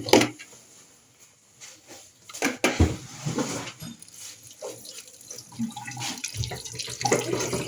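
New metal pots, lids and utensils being handled and unpacked: scattered sharp knocks and clinks with uneven rustling between them, quietest about a second in.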